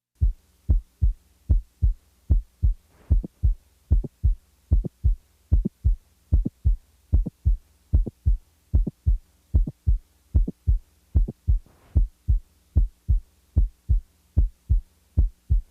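Heart sounds: a steady lub-dub of the first and second heart sounds, a little more than one beat a second, with a high-pitched mid-systolic non-ejection click brought in between them during systole and then taken away again. Such a click is most commonly caused by mitral valve prolapse. A faint steady hum lies underneath.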